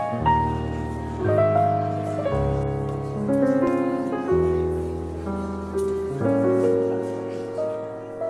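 Slow piano music: notes and chords struck about once a second and left to fade.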